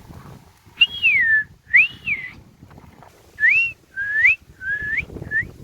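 Ringneck parakeet whistling a series of about six clear notes: a falling whistle and an arched one, then shorter glides that mostly rise in pitch.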